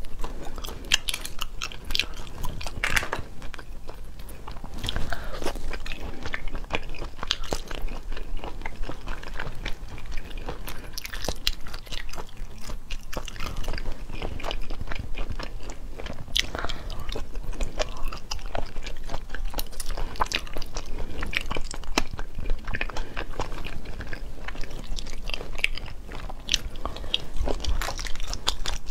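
Close-miked eating: a woman biting and chewing food, with frequent short, irregular clicks from mouth and food all through.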